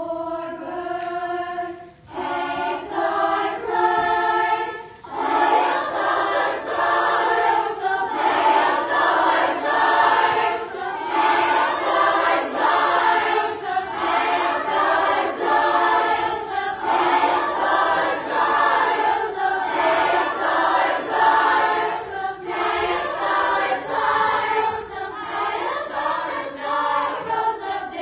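Honors chorus singing a cappella in four parts, with no accompaniment. The sound is thin at first and grows fuller about two and five seconds in as more voices join.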